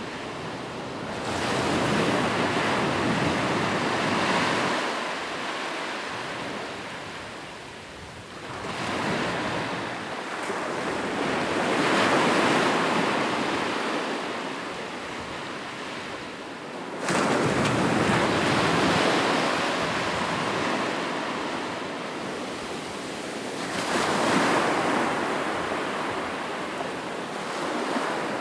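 Sea waves breaking and washing up the shore in slow surges, about one every six to eight seconds. Each swells to a rushing crash and then fades as the water draws back.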